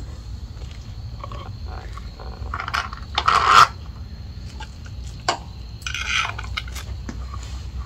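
Hand-handling noises as an e-bike headlight is taken off its metal fender bracket: a few short scrapes and rustles, the loudest about three seconds in, and a sharp click of small hardware about five seconds in, over a low steady hum.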